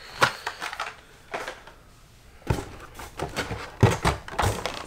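Blister-packed Hot Wheels die-cast cars being handled, lifted from the shipping case and set down. It is an irregular run of light plastic-and-card clacks and knocks, the loudest a little before four seconds in.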